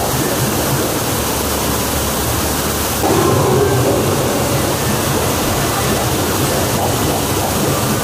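Steady rush of falling water, a loud even hiss, slightly louder for a moment about three seconds in.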